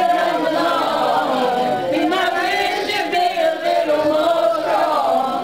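A group of people singing a song together, holding long notes.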